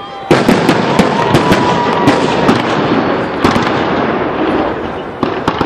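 Fireworks display: aerial shells bursting in a rapid barrage of sharp bangs, starting suddenly about a third of a second in.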